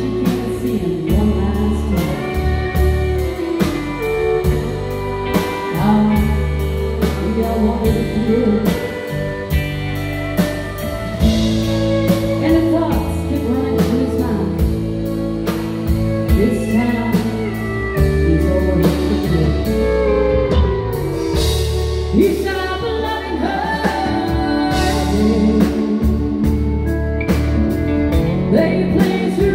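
Live country band: a woman singing into a microphone over fiddle, electric bass guitar and drums, with a steady beat.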